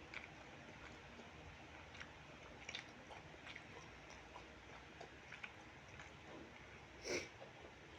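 Close-miked eating sounds of someone chewing fried rice with chicken liver and gizzard: faint, soft mouth clicks and smacks about once a second, with one louder click near the end.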